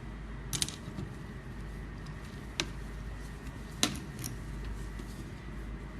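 Four separate light clicks of steel surgical instruments being handled in their case, over a low steady hum.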